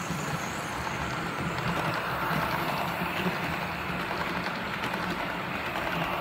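OO gauge model train running along the track: a steady hum and rumble of the small motor and wheels on the rails.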